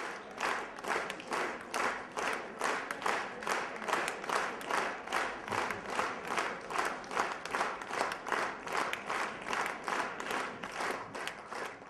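Theatre audience applauding in unison, rhythmic clapping at a steady pace of about three claps a second.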